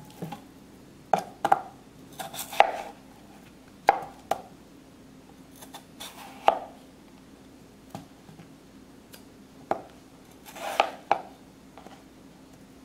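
Chef's knife slicing peeled yellow potatoes into rounds on a plastic cutting board: a run of sharp knocks as the blade comes through onto the board, irregularly spaced a second or more apart, some in quick pairs.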